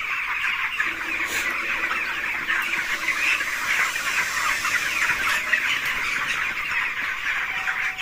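A large flock of young broiler chickens calling, a dense, steady chorus of many overlapping calls.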